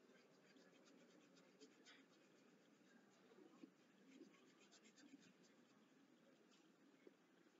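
Faint scratching of a pencil tip on paper in many short, irregular strokes, shading a drawing, over a low steady hiss.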